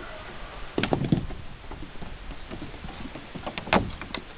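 Goats moving about: scattered knocks and taps, with a louder cluster of thumps about a second in and a single strong thump near the end.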